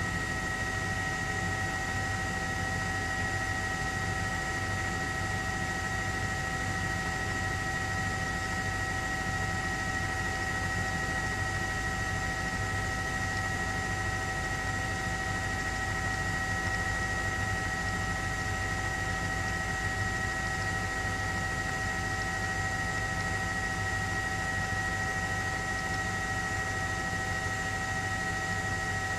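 Helicopter turbine and rotor noise: a steady drone with several high, held whines on top and a faint low pulsing underneath.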